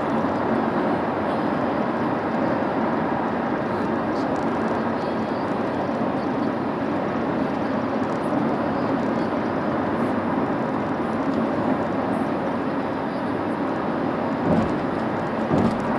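Steady road and engine noise inside a moving car's cabin, with two short low thumps near the end.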